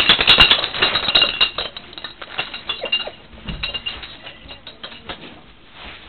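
A dog coming in from the snow, making a rapid run of small clicks and metallic clinks. They are densest for about the first second and a half, then thin out to scattered clicks.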